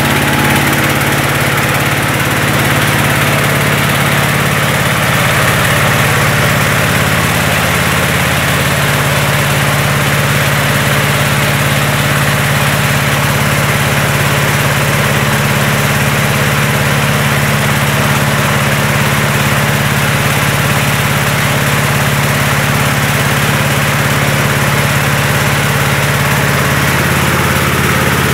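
Engine-driven mobile rice mill running steadily, a constant engine hum under a steady hiss.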